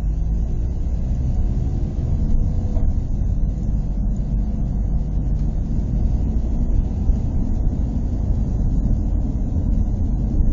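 Car engine running and tyres rumbling on the road, heard from inside the cabin as a steady low hum.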